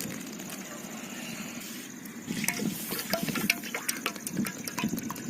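Cooking oil being poured into a small metal cooking pot, a steady pouring sound, with a run of irregular clicks and ticks over it from about two seconds in.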